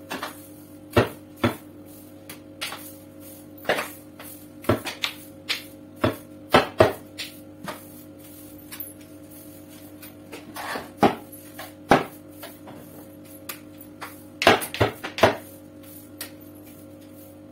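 Long-handled floor broom knocking and scraping on a tiled kitchen floor: irregular sharp clicks and taps, a few seconds apart, with small clusters near the middle and again near the end.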